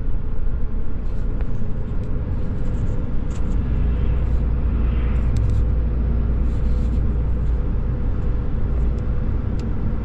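Steady engine and road rumble heard inside a Ram 3500 pickup's cab while it drives along the highway.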